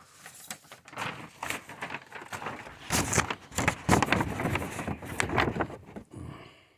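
Close rustling and crackling handling noise with many small clicks, loudest in the middle, dying away near the end.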